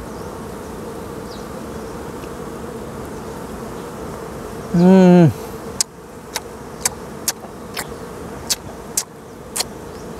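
Honey bees buzzing steadily around opened brood comb. About halfway through comes a short, loud hummed vocal sound whose pitch bends up and then down, followed by a string of sharp clicks, a couple each second, while he chews.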